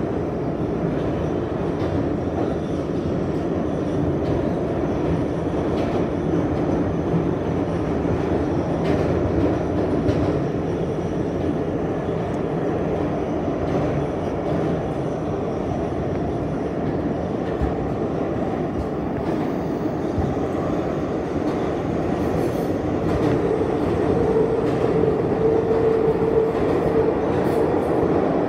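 R160 subway car running through a tunnel, heard from inside the car: a steady rumble of wheels on rail with occasional faint clicks. A steady tone joins near the end as the noise grows slightly louder.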